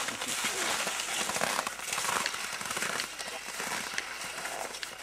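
Cross-country skis and poles crunching and scraping on packed snow, an irregular crisp crackle with scattered small clicks.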